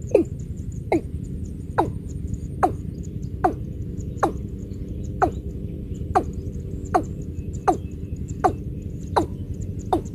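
Watercock calling: a steady series of short, sharply falling notes, a little under one a second, over a steady low rumble.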